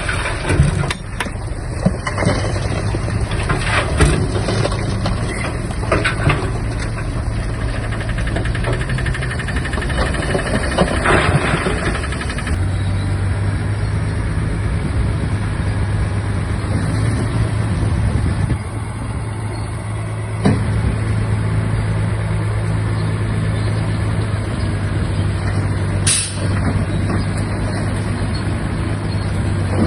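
Diesel engine of a Shantui DH17-C3 crawler bulldozer running steadily under load, with scattered knocks and clanks in the first dozen seconds. A short high hiss comes near the end.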